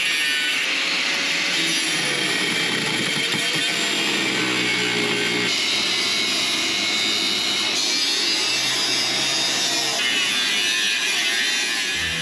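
Angle grinder with a thin cutting disc slicing through rusted steel of a Jeep TJ's underbody, running steadily under load. Its pitch wavers as the disc bites, and the tone shifts suddenly a few times.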